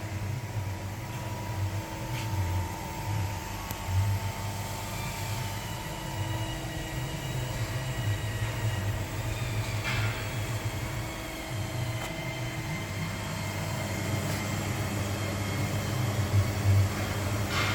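Beyeler EU 100 hydraulic CNC press brake running: a steady low hum with whining tones, some of which slide slowly in pitch, and a few sharp clicks.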